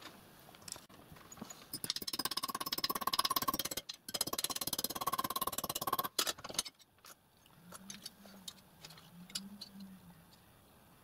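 Metal being worked in a steel bench vise: two runs of rapid rasping strokes, each about two seconds long, then a single sharp knock and a few light taps and clinks.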